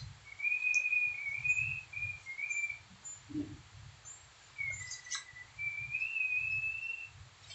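A high, wavering whistled tune in two long phrases. There is a short scrape of sandpaper on the plastered wall about five seconds in.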